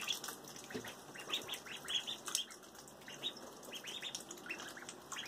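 Ducklings peeping, many short high chirps in quick irregular succession, while paddling in shallow bathtub water with light splashing.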